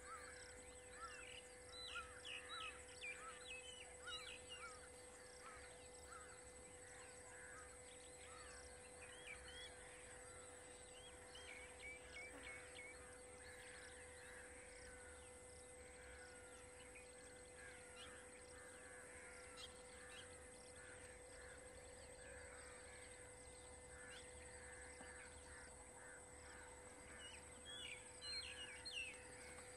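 Faint forest ambience of wild birds calling: many short chirps, busiest in the first few seconds and again near the end, over a steady faint hum.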